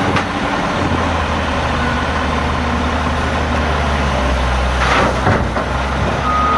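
Diesel engines of wheel loaders and an articulated dump truck running steadily under load, with a rush of coal tipped from a loader bucket into the truck's body about five seconds in. A steady high beep starts just before the end.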